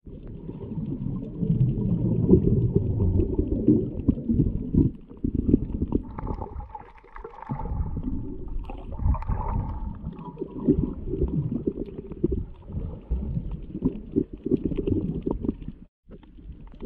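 Muffled, low rumbling water noise picked up underwater through a waterproof action-camera housing, uneven in level, dropping out briefly near the end.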